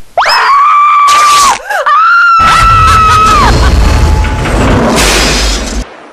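A long, high-pitched scream, held steady, breaks off briefly and then comes again. About two and a half seconds in, a loud crashing rumble joins it and goes on for about three seconds before cutting off suddenly.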